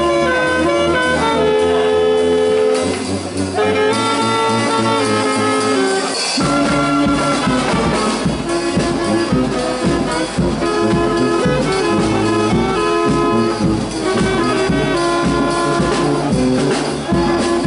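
Music with brass instruments playing held melodic notes; an even beat comes in about six seconds in.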